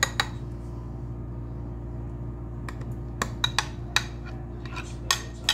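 A metal spoon clinking against a glass baking dish as barbecue sauce is spooned over pork chops: two clinks at the start, then a run of sharp clinks from about three seconds in, over a steady low hum.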